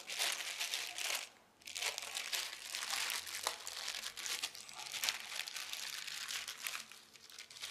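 Clear plastic packaging bag crinkling and rustling as a long antenna is slid out of it, in irregular rustles with a short pause about a second and a half in.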